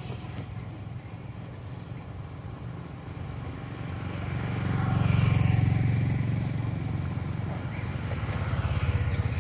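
A low, steady rumble that swells about five seconds in and stays louder.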